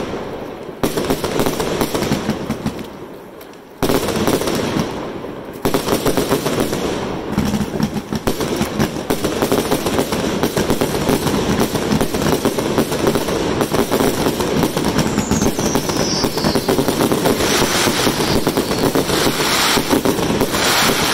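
Aerial fireworks bursting overhead in a rapid string of bangs and crackling. Three separate volleys, each dying away, come in the first six seconds, and then the barrage runs on without a pause.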